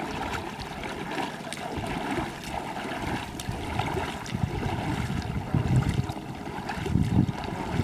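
Water splashing and sloshing around legs wading through shallow sea water while inflatable floats are dragged along, with heavier surges of splashing near the end.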